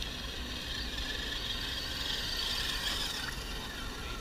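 Small RC scale crawler trucks' electric motors and gearboxes whining steadily as they drive.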